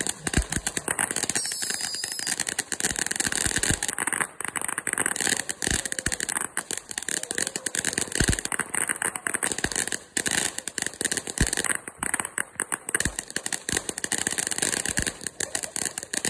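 Ground fountain firework spraying sparks: a steady hiss with dense, rapid crackling throughout.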